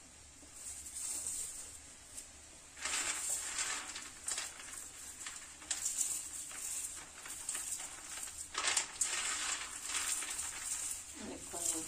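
Roasted peanuts rubbed between the palms over a steel plate to crack off their papery red skins: dry rustling and crackling in repeated bursts, starting about three seconds in.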